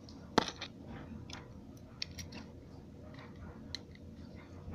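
Lego bricks clicking and rattling as the toy shotgun is handled and reloaded: one sharp click about half a second in, then scattered lighter clicks.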